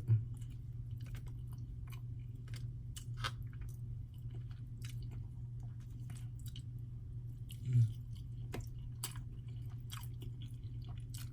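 A person chewing a mouthful of cheesy lasagna roll-up close to the microphone: soft, wet mouth clicks scattered throughout, over a steady low hum, with a short voiced 'mm'-like sound about eight seconds in.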